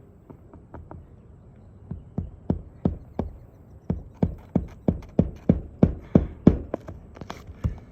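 A run of sharp knocks, a few scattered at first and then about three a second from about halfway in, getting louder.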